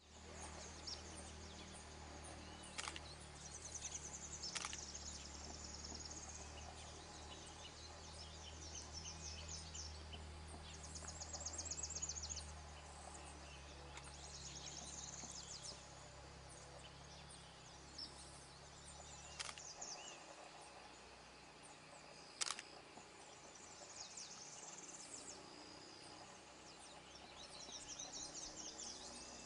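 Tropical forest ambience: small birds chirping and trilling high-pitched throughout, with a few sharp clicks. A steady low rumble stops about two-thirds of the way through.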